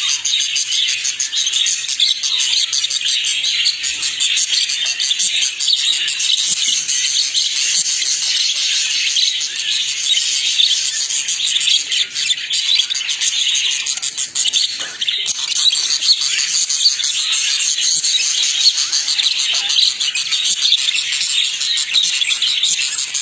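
Budgerigars chattering and warbling continuously, a dense high-pitched twittering.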